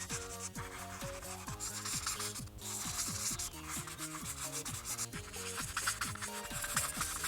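Ohuhu art marker tip rubbing back and forth across paper in quick, scratchy strokes as an area of the page is colored in.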